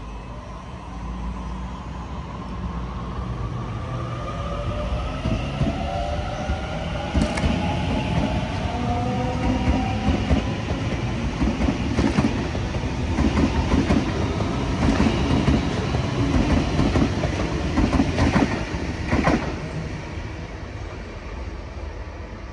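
Sydney Trains Waratah double-deck electric train passing close by. Its motor whine slides down in pitch, then the wheels clack and knock over the rail joints with a heavy rumble, loudest in the middle, before the sound fades.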